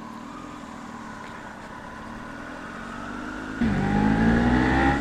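Kawasaki Z300 parallel-twin motorcycle engine taking off. About three and a half seconds in it comes in suddenly and loud, revving up and rising in pitch, over a quieter motorcycle engine hum.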